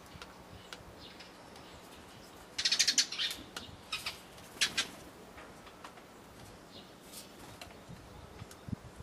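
A tree sparrow's wings fluttering in a short, fast burst about three seconds in, followed by a few brief sharp clicks.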